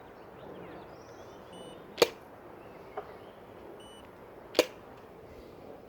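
Godox photo flash firing twice with a loud, sharp pop, about two and a half seconds apart, with a fainter click between them. A short high beep comes shortly before each pop. The flash is faulty: it makes a loud sound and gets extremely hot.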